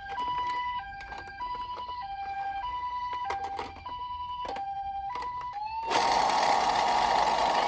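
Toy minicar's electronic siren playing the two-tone hi-lo ambulance pattern, with scattered clicks. About six seconds in it changes to a louder, hissy wailing siren that rises and then holds its pitch.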